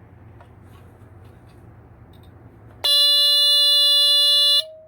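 Entronic Vigilante II ES-7 smoke detector's alarm horn set off by its test button: a few faint clicks, then about three seconds in one pretty loud, steady tone for under two seconds that stops abruptly, leaving a faint lower tone that fades out.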